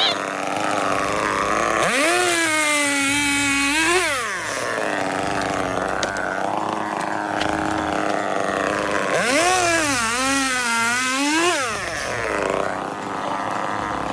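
Two-stroke chainsaw revved up twice, each time for about two seconds, then dropping back to a low idle between. Its pitch dips and wavers in the second burst.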